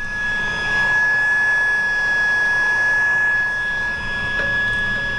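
Heat gun blowing with a steady high whine over a rush of air, shrinking clear heat-shrink tubing over soldered headset jack terminals.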